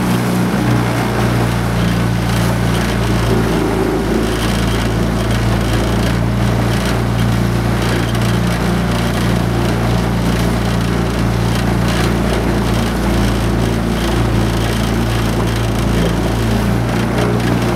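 Outboard motor running at a steady speed, an even low drone that does not change.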